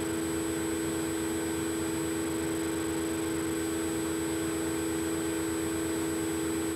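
Steady electrical hum with several low pitched tones and a faint thin high whine over light hiss, unchanging throughout: background noise of the recording setup, with no other sound standing out.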